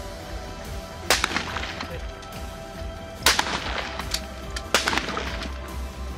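Rifle shots on a firing range: three loud cracks, about a second in, just past three seconds and near five seconds, each trailing off in a short echo, with a few fainter shots between.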